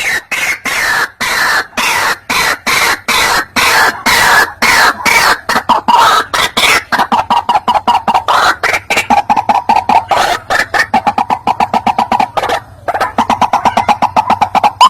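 White-breasted waterhen calling: a long series of loud, harsh notes repeated without pause, quickening about halfway into a fast even chatter, with one short break near the end.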